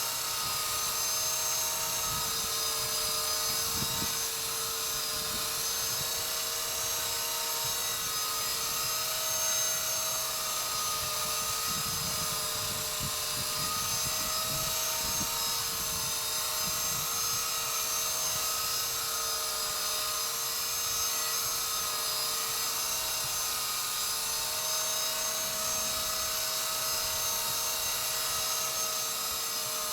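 Walkera V120D02S micro RC helicopter hovering: a steady high whine from its electric motor and spinning rotors, the pitch wavering slightly as it holds position.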